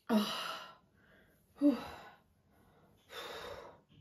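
A woman breathing out heavily three times through pursed lips, about a second and a half apart, the second the loudest; the breathing of someone uncomfortably bloated after drinking a lot of fizzy drink.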